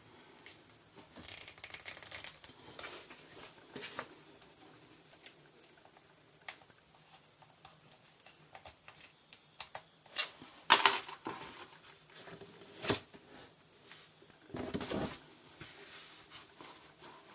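Small plastic parts of a broken LED disco bulb being handled during a glue repair: scattered light clicks and rustles, with a few sharper clicks about ten and thirteen seconds in and a duller knock about fifteen seconds in.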